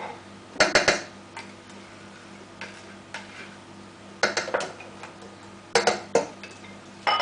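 Clinks and knocks of a wire whisk and a spatula against a glass bowl and a stainless steel saucepan, in four short clattering bursts, as a bowl is scraped out over the pan. A faint steady hum lies underneath.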